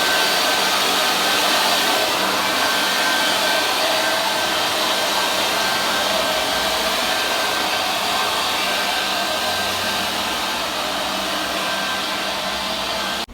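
Steady rushing whine of a powerful electric air-moving motor, like a car-wash vacuum or blower, with a thin high tone running through it; it cuts off suddenly at the very end.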